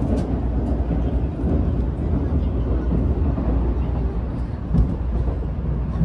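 Cabin noise inside an N700A Tokaido Shinkansen car as the train runs: a steady deep rumble with an even rushing noise over it.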